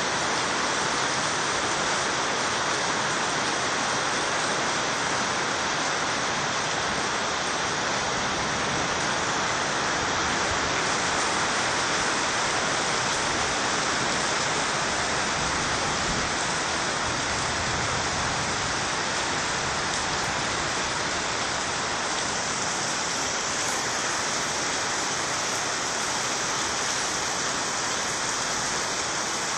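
Very heavy rain: a steady, dense hiss of rain pelting puddled ground and roofs, with water pouring off the roof edges.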